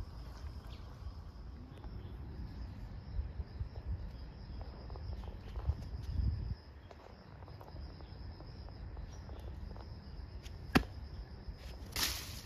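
Insects trilling with a steady high, thin note over a low rumble on the microphone. A single sharp click comes near the end, followed by a brief rustling hiss.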